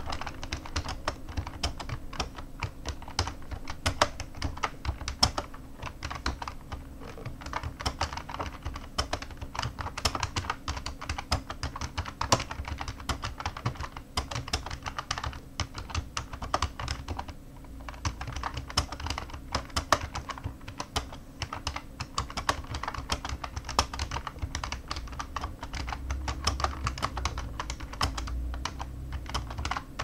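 Continuous typing on an IBM PCjr chiclet keyboard, its stiff rubber-dome keys clattering in quick, uneven runs with a couple of brief pauses.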